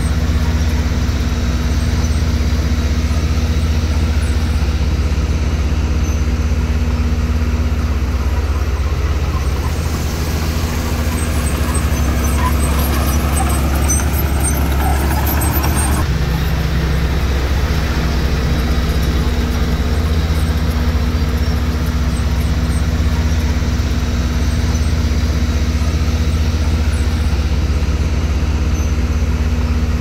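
Diesel engine of a heavy earthmoving machine running steadily with a deep, loud rumble. In the middle a noisier, crackly stretch covers the engine tone and cuts off suddenly about sixteen seconds in.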